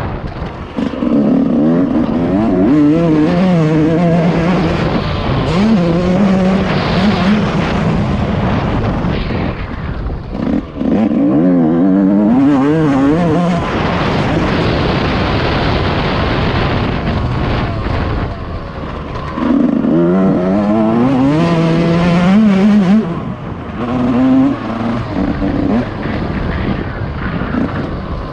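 Yamaha YZ144 two-stroke dirt bike engine running hard, its pitch climbing again and again as the rider accelerates through the gears, with short drops when the throttle is closed.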